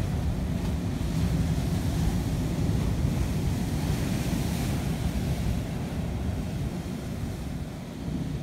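Wind buffeting the microphone with a low rumble, over the wash of sea surf on a rocky shore.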